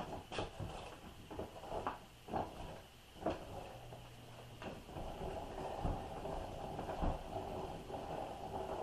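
Hand-cranked meat grinder being turned as chunks of beef are forced through it: irregular knocks and clunks about once a second, with a steadier grinding rasp in the second half.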